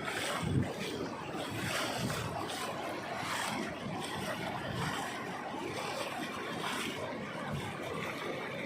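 Godavari river in flood: a steady rush of fast-moving water, with occasional wind bumps on the microphone.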